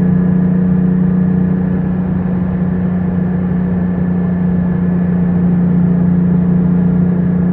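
Porsche 718 Spyder's 4.0-litre naturally aspirated flat-six, sports exhaust on, running at steady revs: a constant drone that holds one pitch with no rise or fall. It sounds dull, with no treble, as heard through a poor microphone.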